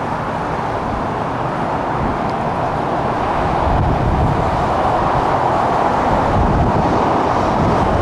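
Steady rushing outdoor noise with wind buffeting the microphone as an uneven low rumble, growing a little louder about four seconds in.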